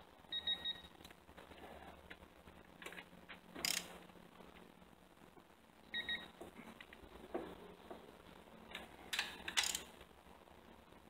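Ratchet and digital torque adapter tightening intake manifold bolts: the adapter gives short two-tone electronic beeps about half a second in and again about six seconds in. A few sharp ratchet clicks and tool knocks come around three to four seconds in and twice near the end.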